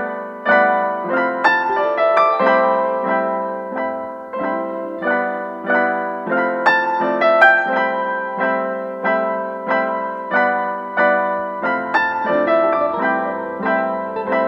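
Background piano music: single notes and chords struck at a steady pace of about two a second, each ringing and fading before the next.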